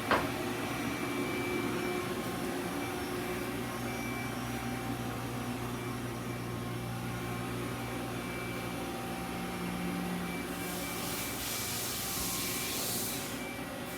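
Mori Seiki NT4250 CNC lathe running under power: a steady machine hum with a few held tones. About ten seconds in, a hiss starts, lasts about three seconds and stops.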